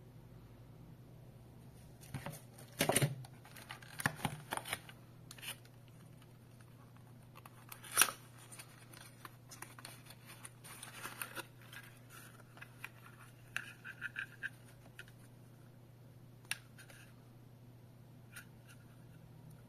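Hands unpacking small white plastic alarm parts and paper packaging: rustling and crinkling with scattered sharp clicks, the loudest about three and eight seconds in, thinning out in the last few seconds. A faint steady low hum runs underneath.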